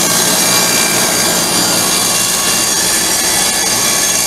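Table saw running and ripping a bowed length of treated pine 2x6 fixed to a plywood sled, cutting a straight edge along it. The steady, loud saw noise does not change.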